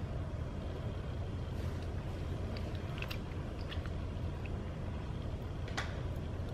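Steady low rumble of background noise, with a few faint small clicks and one sharper click near the end.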